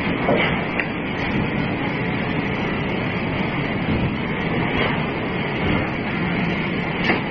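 Steady, dense rumble of heavy forge-shop machinery at a furnace, with a few light metallic knocks.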